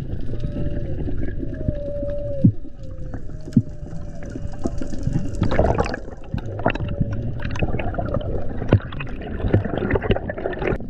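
Underwater sound picked up by a diver's camera while swimming up from a reef: a low rush of water with scattered sharp clicks and knocks, and a faint thin gliding tone in the first half. About halfway through, as the camera nears the surface, the water noise gets busier and louder.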